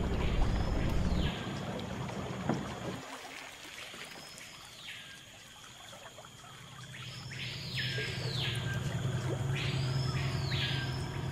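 A bird calling repeatedly, each call rising then falling in pitch, with several calls close together near the end. Under the calls is the low drone of a small boat's outboard motor, which fades out a few seconds in and comes back in the second half.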